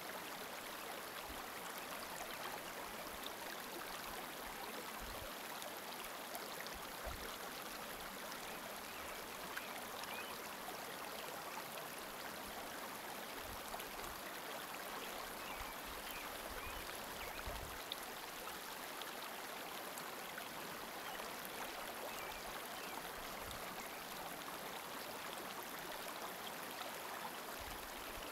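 Steady rush of running water, like a small stream, with a few brief low rumbles scattered through it.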